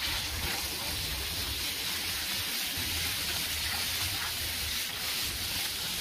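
Water from a garden-hose spray wand hissing steadily as it showers onto and washes a dirt-clogged air-conditioner condenser coil.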